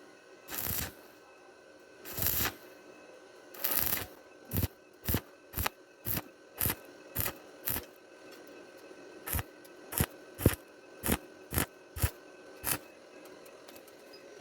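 A series of short sharp knocks and scrapes: three longer scrapes in the first few seconds, then quicker knocks at about two a second in two runs, with a pause between the runs.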